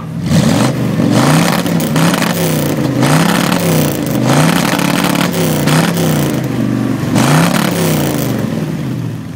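A classic Ford Thunderbird's V8 is revved through its exhaust, the engine rising and falling again and again at about one rev a second, with a rush of exhaust at each peak.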